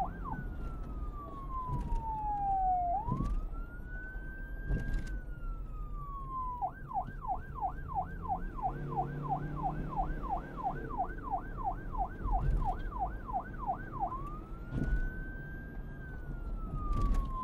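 Police siren alternating between a slow wail that rises and falls and a fast yelp of about three sweeps a second, over a low rumble.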